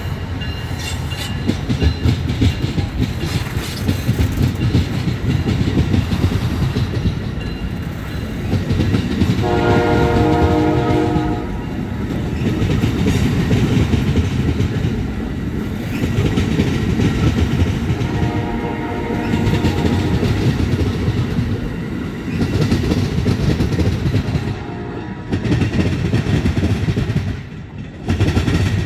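An Amtrak passenger train's bilevel Superliner cars roll past at speed, wheels rumbling and clicking over the rail joints. A train horn sounds briefly twice, about ten seconds in and again around eighteen seconds. The rumble drops away near the end as the last car passes.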